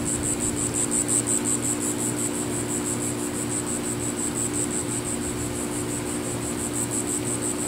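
Insects chirping in a steady, rapidly pulsing high-pitched drone, over a steady low hum.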